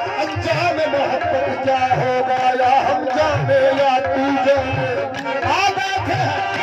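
Live Pakistani ghazal in qawwali style: harmoniums holding a steady melody over a regular hand-drum beat, with a man singing a long, wavering melodic line.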